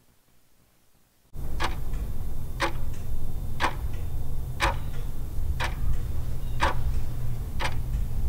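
Countdown timer sound effect: a clock ticking once a second over a steady low hum, starting about a second and a half in.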